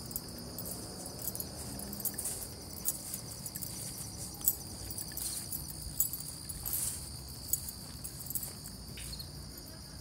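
A steady chorus of crickets chirping, one continuous high trill.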